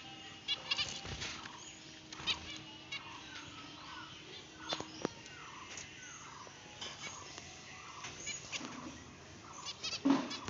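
Zebra finches calling: many short, nasal beeping calls, some in quick rattling runs, repeated over and over, with a louder burst near the end.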